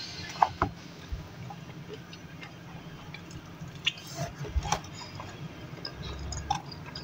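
Close-miked eating sounds: a person chewing French fries with the mouth closed, with scattered sharp wet mouth clicks and smacks, the loudest about half a second in and others near the middle.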